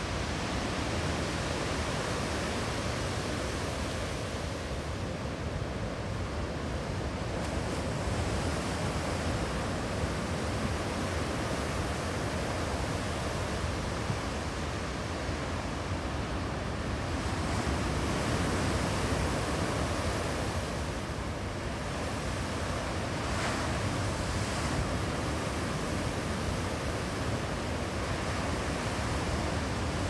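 Ocean surf: waves breaking and washing up a sandy beach, a continuous rushing noise that swells a little about eighteen seconds in.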